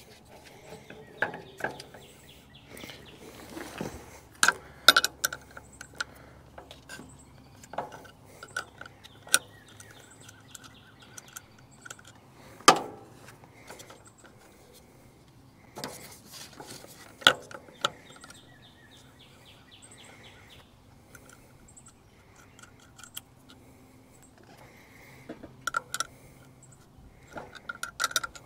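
Scattered clicks, clinks and knocks of hand work on an electric radiator fan and its plastic housing as they are taken apart, with a few sharper knocks among lighter rattling of small parts.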